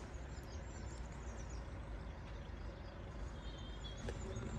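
Steady low rumble of road traffic, with a few faint bird chirps. Near the end a steady hum with several pitches comes in.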